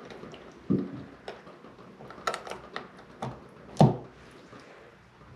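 Clicks and knocks of a shower valve trim part being pushed and snapped into place by hand, a scattered series of sharp taps with the loudest knock about four seconds in.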